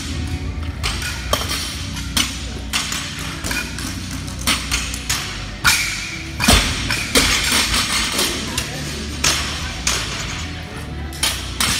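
Barbells loaded with bumper plates are snatched and dropped onto rubber gym flooring, giving repeated thuds and clanks; the loudest comes about six and a half seconds in. Background music and a few voices run underneath.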